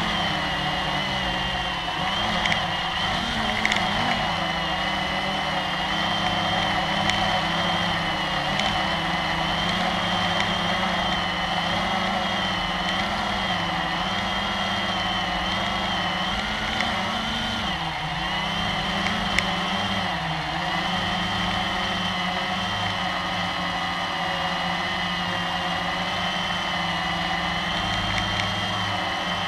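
Blade 350QX quadcopter's four brushless motors and propellers buzzing steadily, heard from the camera mounted on the drone itself. The pitch wavers a little as the drone manoeuvres, sagging briefly about two-thirds of the way through.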